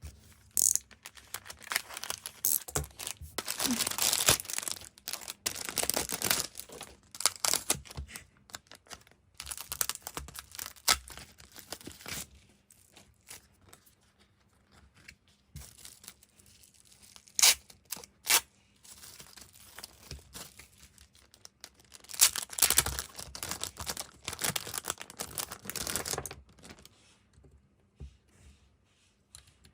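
Packaging being torn open and crinkled by hand while unboxing merchandise, in two long stretches of rustling and ripping with a few sharp clicks in between.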